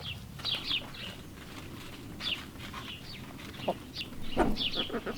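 Poultry calling: a steady run of short, high-pitched peeps, with a sharp knock about four and a half seconds in.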